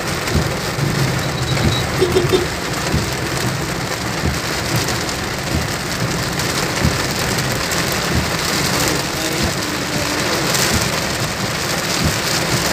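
Heavy rain beating on a car's roof and windshield, heard from inside the cabin: a steady, dense hiss with frequent low thuds.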